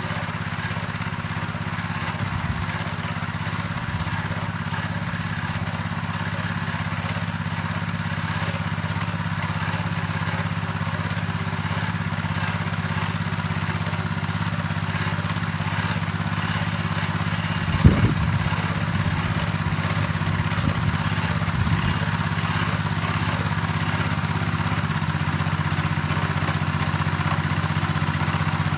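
Patriot Kuban M walk-behind tractor's 7 hp engine running steadily while tilling, with a few short knocks; the loudest comes about two-thirds of the way through.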